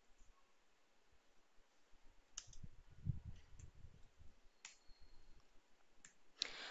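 Faint, sparse computer keyboard keystrokes: a handful of single clicks a second or so apart, with a soft low thump about three seconds in.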